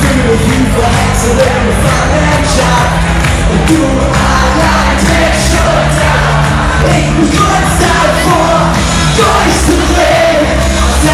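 Loud live pop music from a band with a male singer, the audience clapping and shouting along.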